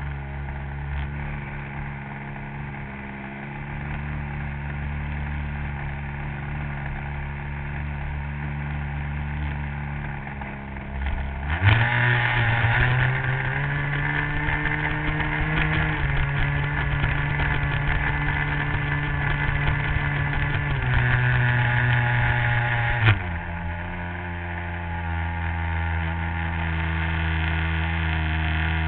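RC model airplane engine running on the ground, heard from a camera mounted on the plane. It idles steadily, is throttled up about twelve seconds in to a higher, louder steady speed held for about eleven seconds, then drops back to idle.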